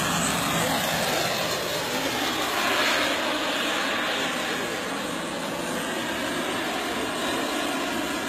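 Radio-controlled scale model helicopter flying, its engine whine steady, with the pitch falling as it passes by about three seconds in.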